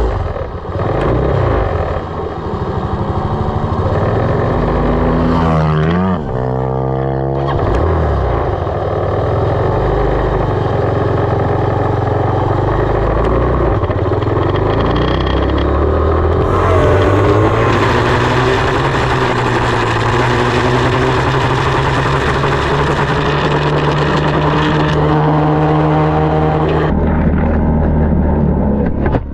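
Single-cylinder four-stroke engine of a 2020 SSR 189 dirt bike running under way, with a sharp rise in revs about six seconds in and varying throttle after. Wind noise rushes over the bike-mounted camera's microphone from about halfway through.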